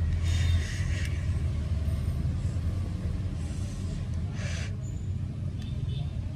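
Vaping on a Zeus X clone rebuildable tank atomizer: short breathy hisses of drawing and exhaling, one near the start and another past the middle, over a steady low rumble.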